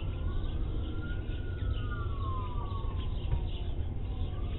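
Police siren wailing, its pitch sliding slowly up and down over a steady low rumble.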